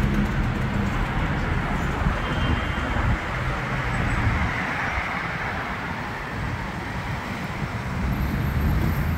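Steady city road traffic: car engines running and tyre noise on the road, with a low engine hum a little louder near the start and again near the end.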